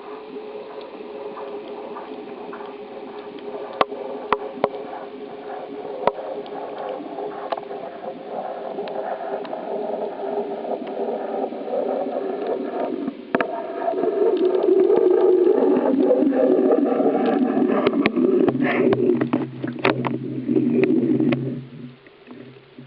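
Water gurgling and sloshing around a kayak, with scattered sharp clicks and knocks. It gets louder about halfway through and falls away sharply just before the end.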